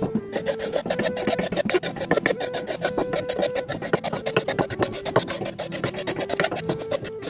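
Knife blade scraping the wooden shaft of an antique bardiche in rapid, even strokes, shaving it down. Soft background music with held notes plays underneath.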